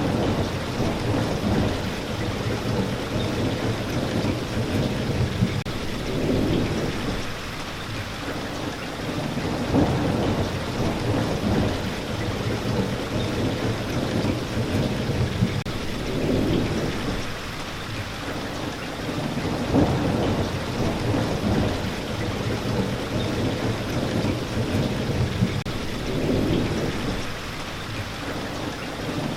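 Steady rain falling, with thunder rumbling low in repeated swells every four to six seconds.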